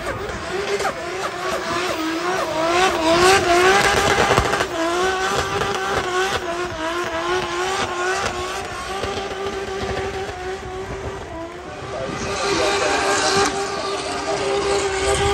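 Racing car engine revving hard, its pitch climbing and dropping again and again in quick succession, then holding a near-steady note that grows louder again near the end.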